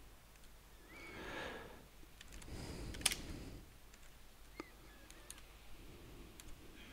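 A few faint computer mouse clicks over low background noise, the sharpest about three seconds in.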